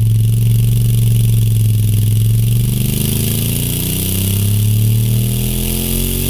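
Honda Africa Twin's parallel-twin engine running loud through a MIVV Speed Edge slip-on exhaust on a chassis dyno, its pitch climbing steadily from about halfway through as the revs rise under load.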